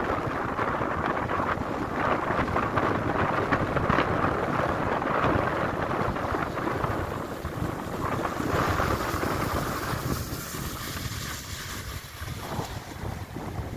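Wind buffeting the microphone with a steady rumble, over the wash of shallow surf. About ten seconds in, the rumble drops and a higher hiss of water takes over.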